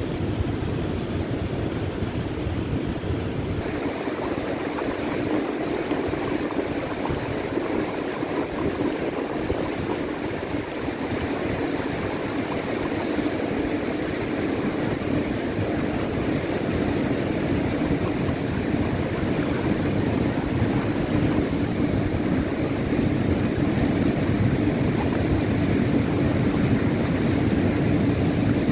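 Fast-flowing creek rushing over rocks in rapids: a steady rush of water, growing a little louder near the end.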